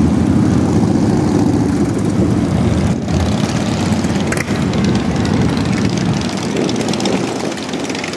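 Motorcycle engines rumbling loudly, easing off about six seconds in.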